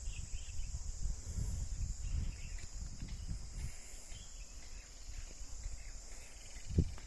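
A steady, high-pitched chorus of insects, typical of crickets, over an irregular low rumble, with a sharp thump near the end.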